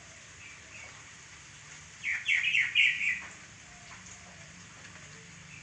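Chicks peeping in an egg incubator: a run of loud, quick, falling peeps about two seconds in, with fainter scattered peeps before and after. A steady low hum runs underneath.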